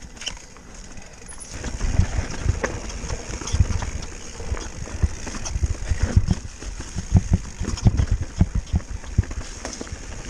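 Mountain bike descending a rough dirt and rock trail: irregular knocks, clatters and rattles from the tyres, suspension and chain hitting rocks and roots, over a steady rush of wind. The knocking grows busier after about a second and a half.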